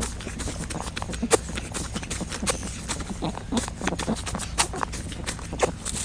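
A rabbit sneezing from an infection: short, sharp sneezes, the strongest about once a second, among many smaller clicks and snuffles.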